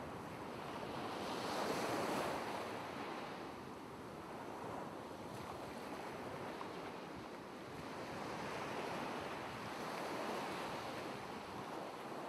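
Ocean surf breaking and washing up a beach, a steady rush that swells and fades in slow surges, the strongest about two seconds in.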